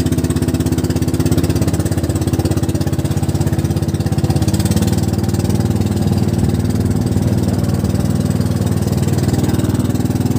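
A small engine running steadily with a fast, even chugging.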